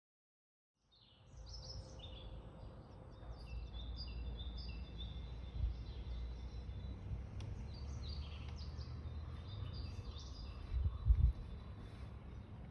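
Small birds chirping and twittering in many short notes over a steady low rumbling noise, starting about a second in, with a couple of louder low bumps near the end.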